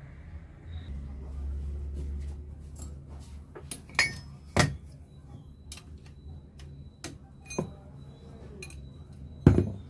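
Metal tools clinking and knocking on an auto-rickshaw self-starter motor as it is taken apart: a few scattered sharp metallic knocks, the loudest near the end.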